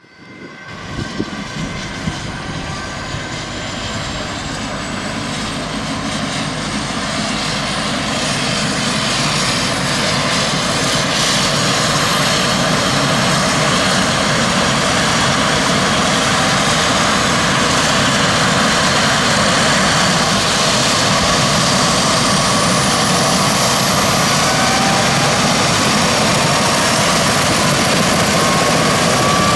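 Airbus H135 helicopter's twin Pratt & Whitney PW206B3 turboshaft engines and rotor running on the ground before take-off. The sound swells over the first ten seconds or so and then holds steady, with a turbine whine rising slowly in pitch throughout.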